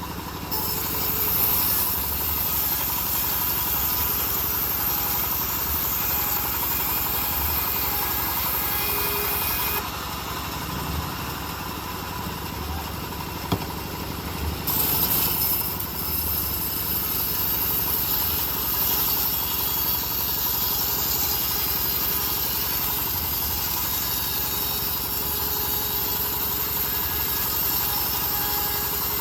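Homemade bandsaw mill running steadily as it saws an old teak log, a constant engine-like drone with a high hiss. The hiss drops for a few seconds around the middle, and there is one sharp click about 13 seconds in.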